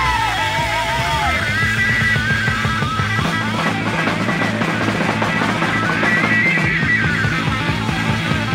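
1971 hard rock recording in an instrumental passage: an electric lead guitar line bending and wavering in pitch over a steady bass and drum backing.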